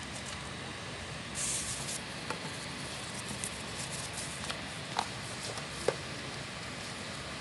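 Hands handling a phone and its packaging: a brief rustle about a second and a half in, then a few light clicks and taps, over a steady background hiss.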